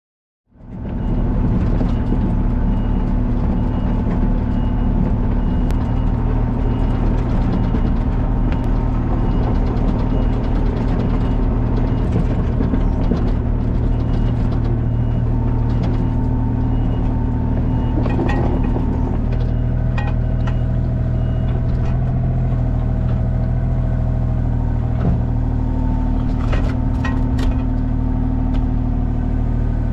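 A large engine-driven machine running steadily, with scattered light clicks and a slight change in its tone about 19 seconds in.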